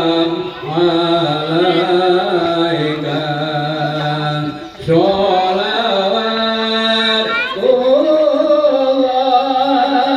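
Music with singing: a voice holds long, wavering notes over sustained accompaniment, with a short break about five seconds in.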